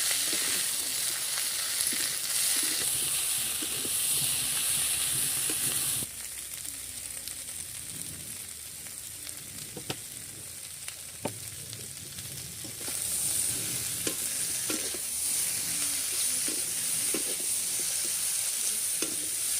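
Chicken curry frying and sizzling in a pan as it is stirred, with scattered light knocks and scrapes of the spoon on the pan. The sizzle drops away abruptly about six seconds in and comes back strongly about thirteen seconds in.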